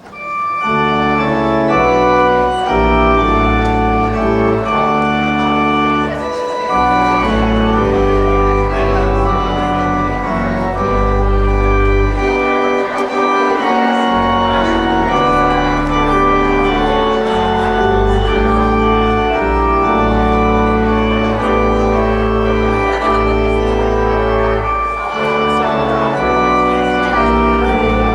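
Instrumental music of held chords over a bass line, starting abruptly.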